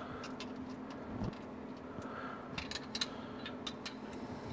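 Small scattered metallic clicks and ticks of a hex lock nut being turned down the threaded body of an engine RPM sensor, more of them a little past the middle, over a steady low hum.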